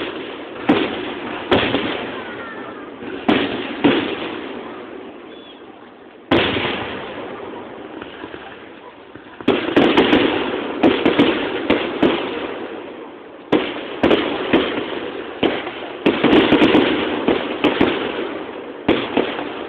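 Aerial fireworks shells bursting with sharp bangs, each dying away in a long echoing rumble. The bangs come a few seconds apart at first, then in rapid volleys about halfway through and again near the end.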